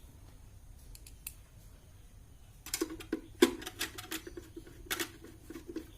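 Quick irregular clicking and rattling of the UPS's battery wire clips and connectors being handled and fitted. It starts about three seconds in and is loudest with one sharp click shortly after.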